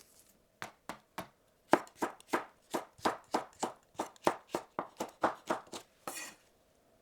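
Knife chopping on a cutting board: a few spaced cuts, then steady chopping at about three to four strokes a second, ending with a short noisy rustle near the end.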